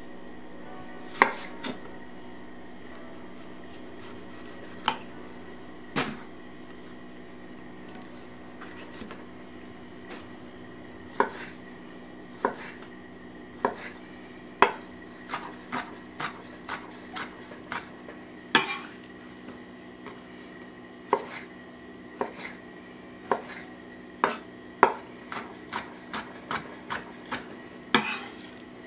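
Chef's knife cutting Roma tomatoes on an end-grain wooden cutting board: irregular sharp knocks of the blade on the wood, scattered at first and coming faster and more often in the second half, over a steady faint hum.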